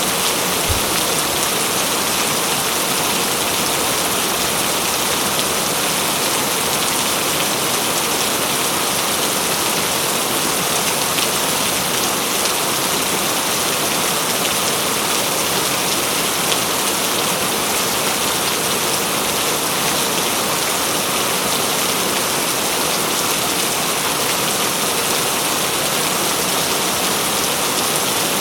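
Heavy rain falling steadily, a dense even hiss of raindrops on leaves and ground.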